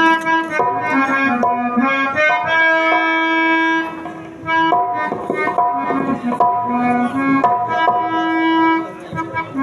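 Instrumental stage music: a harmonium plays a melody of held notes that step from one pitch to the next, with tabla drumming.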